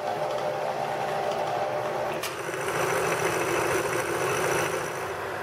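Metalworking machines running: a horizontal bandsaw at aluminium bar stock, then, about two seconds in, a milling machine cutting aluminium with an end mill, with a steady high whine.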